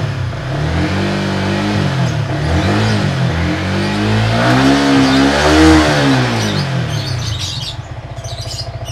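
Yamaha R15 V3's 155 cc single-cylinder engine revved lightly: a few short throttle blips, then one longer rev about five seconds in that falls back to a steady idle. The engine sounds fine. Birds chirp faintly near the end.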